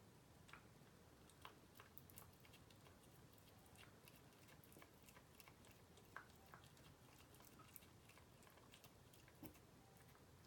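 A cat slowly chewing a piece of raw chicken: faint, irregular small clicks and wet smacks.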